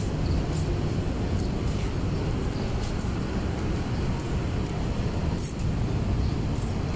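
Steady low rumble of city street traffic, with faint clicks now and then.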